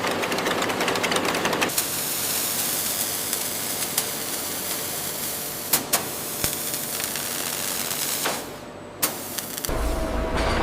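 Factory machinery running. It starts with a fast mechanical rattle, then turns to a steady hiss with a few sharp clicks. Near the end comes a low hum with a steady tone.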